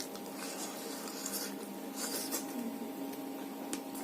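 A person eating rice and fish curry: chewing and food-handling noises come as a few short noisy bursts and a couple of sharp clicks over a steady hum.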